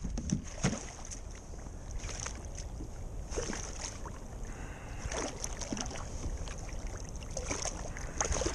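Water splashing and sloshing at the side of a plastic kayak in short, irregular bursts as a striped bass is drawn to the surface and grabbed by hand, with wind on the microphone.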